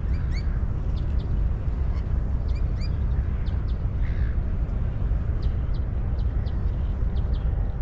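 A steady low rumble of outdoor ambience, with short, high bird chirps scattered through it, several in quick succession about five to six seconds in.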